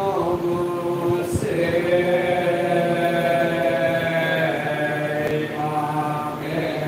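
Group of men chanting a marsiya, the Urdu elegy of Muharram, together in long drawn-out notes that slowly bend in pitch, without instruments.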